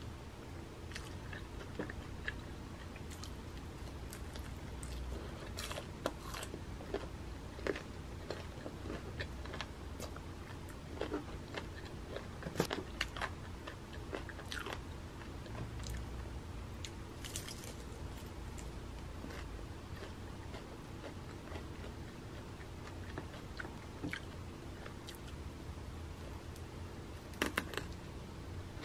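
Crispy fried chicken being bitten and chewed close to the microphone: irregular crisp crunches scattered through, with bunches of them in the middle and near the end, over a low steady hum.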